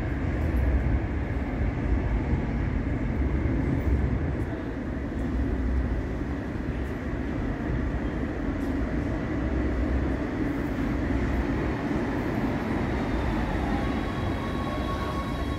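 Cologne KVB K4000-series Stadtbahn car rolling into an underground station platform with a steady rumble of wheels on rails. A faint high whine comes in near the end as it slows.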